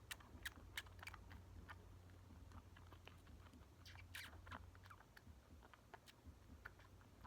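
Faint, irregular little wet clicks and smacks of a bottle-fed kitten suckling on the bottle's nipple, over a low steady hum.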